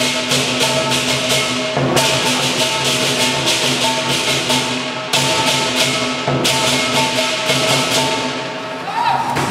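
Southern lion dance band playing: a large lion drum beaten fast with cymbals clashing at a quick even pulse and a gong ringing underneath. The cymbals break off briefly a few times and thin out near the end.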